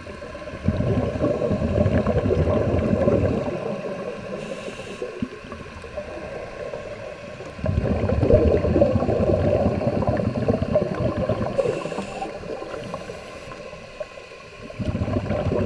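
Scuba regulator exhaust bubbles gurgling underwater from a diver's exhalations: three long bubbling breaths about seven seconds apart, with quieter spells between.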